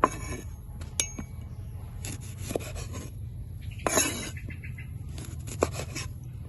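Kitchen handling noise while making a chili and lime sauce: a few scattered light knocks and clinks of utensils and dishes, with a short scraping rustle about four seconds in, over a steady low hum.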